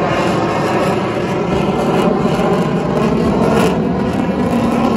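Military fighter jet flying past overhead: loud, steady jet engine noise.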